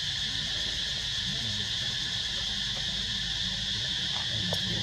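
Steady, high-pitched drone of forest insects, an even chorus that does not change.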